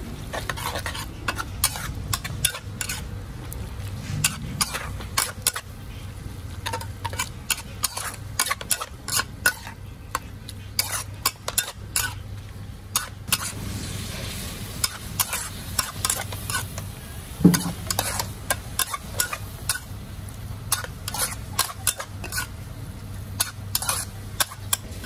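Metal spatula scraping and clanking against a wok as noodles, beef and vegetables are stir-fried, with frequent irregular clicks over the sizzle of the frying. A steady low hum runs underneath, and there is one louder knock about two-thirds of the way through.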